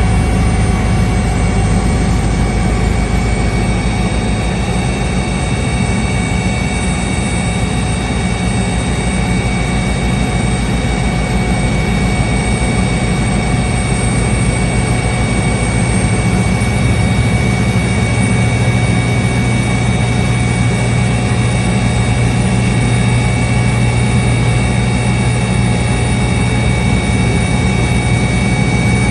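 Helicopter engine and rotor running steadily, heard from inside the cabin: a loud, even low drone with a constant whine above it.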